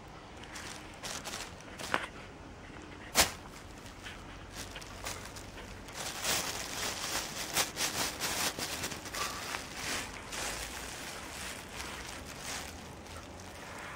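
Thin plastic carrier bag rustling and crinkling as a kitten paws and climbs on it, in irregular crackles that thicken between about six and ten seconds in. A single sharp click about three seconds in is the loudest sound.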